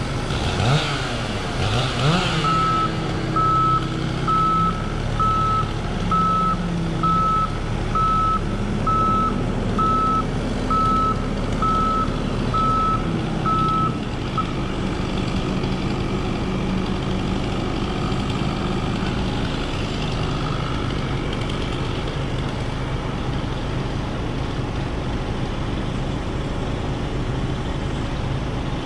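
Vehicle reversing alarm beeping evenly about once a second over a running engine; the beeping stops about halfway through while the engine keeps running.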